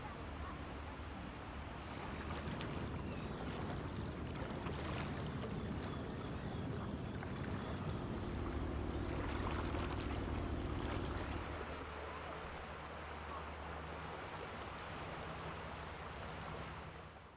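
Low, steady drone of a ship's engine, shifting slightly in pitch partway through, under wind and small waves lapping at the shore.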